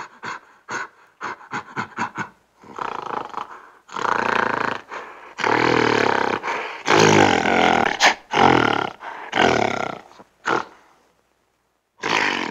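Gorilla vocalising: a run of short, quick grunts or pants, then a string of about six longer, loud calls of roughly a second each, falling silent about a second before a new call starts at the very end.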